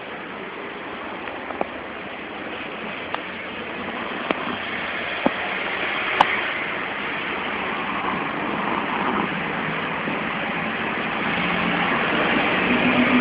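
Loud, rough snoring of a sleeper, continuous and growing steadily louder, with a few short clicks in the first half.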